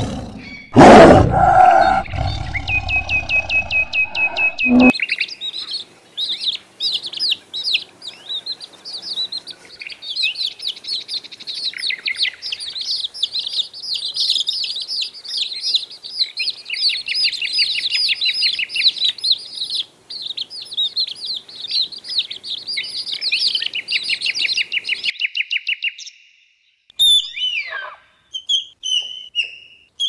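A tiger roars in the first few seconds. Then a brood of young chicks peep continuously, a dense chorus of high, rapid cheeps. A few short, falling squeaks follow near the end.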